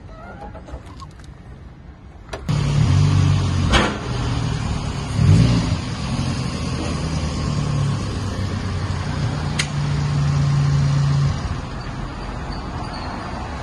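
A motor starts abruptly about two and a half seconds in and runs with a steady low hum, then cuts out about eleven seconds in. A couple of sharp knocks stand out over it.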